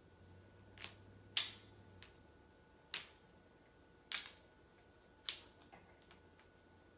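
Wooden Jenga blocks clacking against each other as they are handled in a loose pile: about five sharp knocks at uneven intervals.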